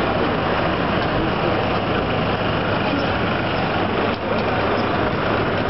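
Steady, loud city street noise dominated by a low engine rumble.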